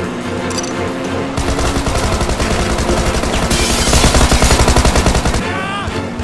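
Rapid automatic gunfire sound effect: a single sustained burst of closely spaced shots, starting about a second and a half in and lasting about four seconds, loudest near its end. Background music plays under it.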